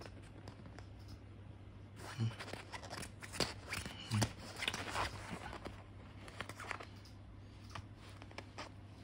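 Scattered soft rustles and scrapes of a kitten scrabbling and pawing on a fabric blanket while batting at a plastic cable tie, over a low steady hum.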